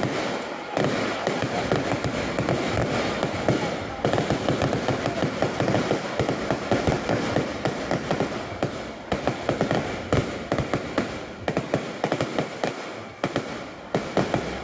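Aerial fireworks display: a dense, continuous run of bangs and crackles from bursting shells, busiest in the middle.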